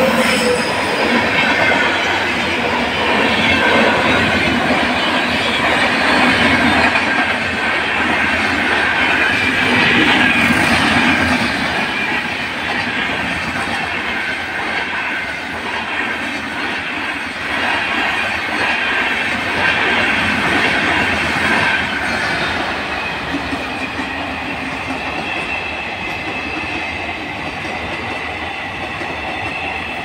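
Passenger coaches of an express train rushing past at speed: a steady rumble and clatter of wheels on rail, with high squealing tones from the wheels running through it. It is loudest for the first ten seconds or so, then eases off a little as the rake goes by.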